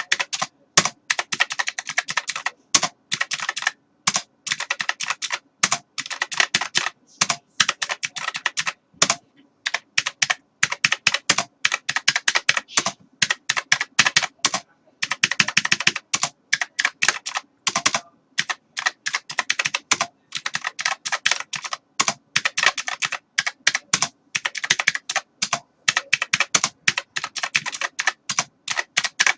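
Typing on a computer keyboard: fast runs of key clicks in bursts, broken by brief pauses.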